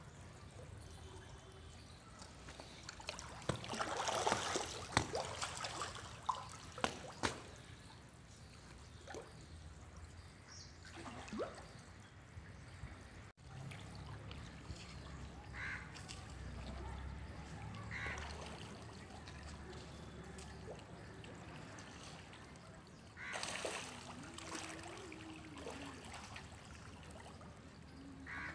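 Faint trickling and splashing of water in a catfish tank, busiest about four to seven seconds in, with a few sharp clicks.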